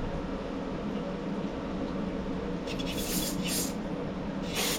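Short hissing sprays blown through a small engine's carburetor passages during cleaning, a few about three seconds in and the loudest near the end, over a steady low shop hum. The passage being sprayed proves completely clogged.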